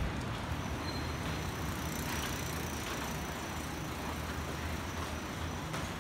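Steady background noise of a covered shopping arcade: a low rumble and hiss, with a faint high steady whine from about half a second in.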